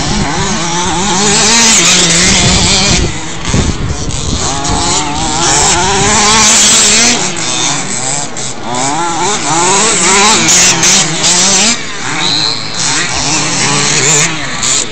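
Several radio-controlled off-road race cars running around a dirt track, their small engines buzzing and revving up and down over one another.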